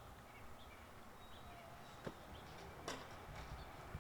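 Faint outdoor ambience: a low, even background with a few faint short chirps and two soft clicks, about two and three seconds in.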